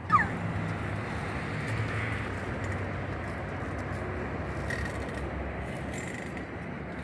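Steady low rumble of distant road traffic. Just after the start comes a short, loud, high call that falls in pitch.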